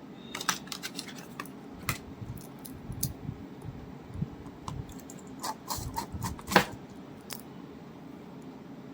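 Irregular light clicks and clatters of small hard objects being handled, with the loudest knock about six and a half seconds in.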